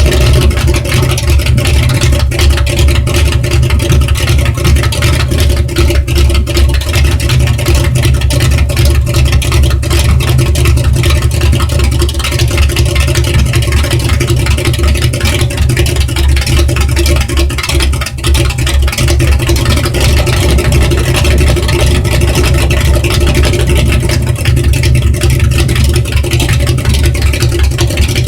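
1968 Ford Galaxie engine running steadily at a constant speed on its first run after an engine repair.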